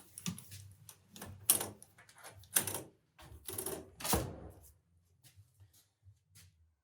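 A series of sharp mechanical clicks and clunks, about six over four seconds, then a few faint ticks: the newly installed smart door lock's latch, handle and hardware being worked.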